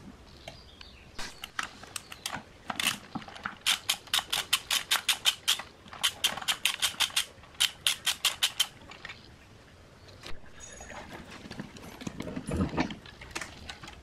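Ratchet wrench clicking in quick runs, about five or six clicks a second, as it turns the centre bolt that holds the amplifier's toroidal transformer. Near the end, a duller scraping rumble.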